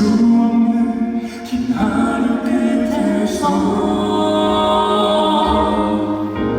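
Male vocal quartet singing in close harmony, holding chords that change about two seconds and three and a half seconds in.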